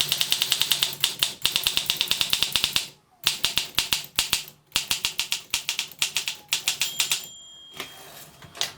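1956 Olympia SM2 manual typewriter being typed on quickly: rapid clacking keystrokes, about ten a second, in runs broken by two short pauses. Near the end a short ringing tone sounds, typical of the margin bell, as the typing slows.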